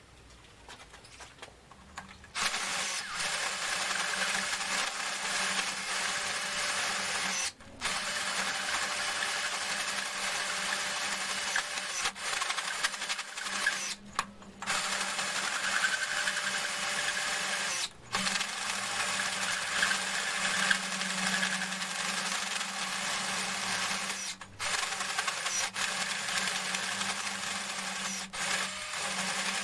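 Electric drill turning a hole saw that cuts into the cast metal frame: a steady motor hum under harsh cutting noise. It starts about two seconds in and breaks off briefly several times.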